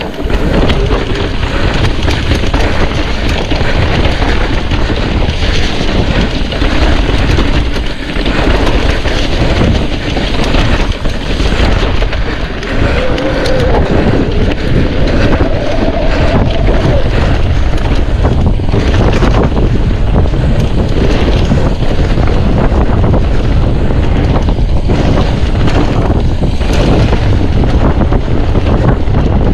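Wind buffeting the microphone while a mountain bike is ridden at speed, with the bike rattling and knocking over the bumps of the trail.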